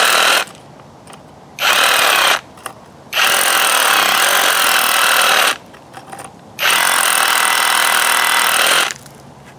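Avhrit cordless hammer drill in chisel (hammer-only) mode, its masonry bit hammering against a concrete block. It runs in bursts: the first stops about half a second in, then three more follow, the last two each lasting over two seconds.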